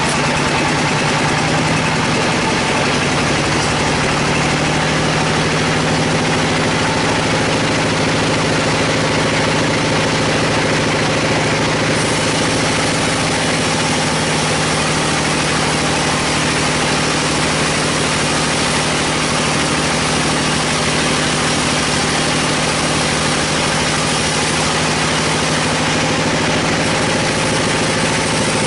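A bandsaw sawmill running steadily as its band blade cuts lengthwise through a large log: a constant machine drone with a steady hum under the hiss of the blade in the wood.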